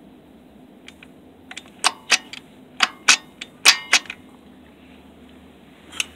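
A quick series of sharp clicks and knocks, about ten within two and a half seconds, then one more near the end: small hard objects being handled during the dirt bike's oil change.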